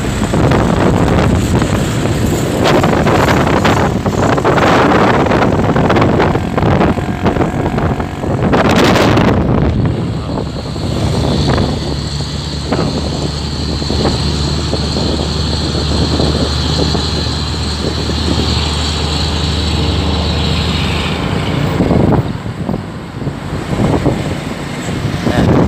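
Road noise from a vehicle driving close beside heavy trucks: gusty wind and rumble, with a loud rush about nine seconds in. Then a steady engine drone with a high whine runs for about ten seconds before easing off.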